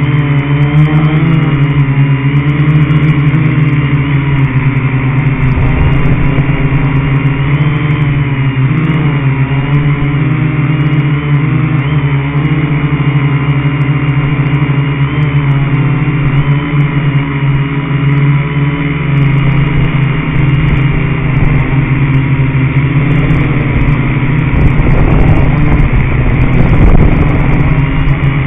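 Electric RC car's motor and gears whining steadily as it drives, heard from a camera mounted on the car, with a low rumble of the wheels over grass and dirt that grows louder near the end.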